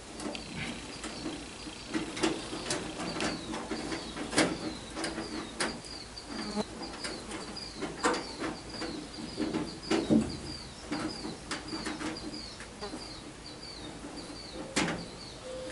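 Scattered sharp clicks and clanks of hand work on the baler's metal parts, the loudest about 4, 10 and 15 seconds in, over a small bird chirping about three times a second.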